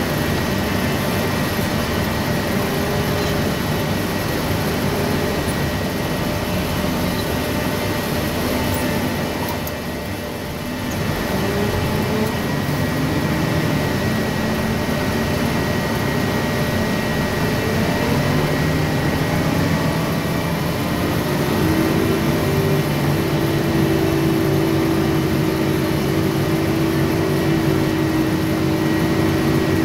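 Heavy forklift's engine heard from inside its cab, running loud and steady with a steady high whine over it. The engine eases off briefly about a third of the way in, then its note rises and holds higher from about two-thirds through as the machine drives on.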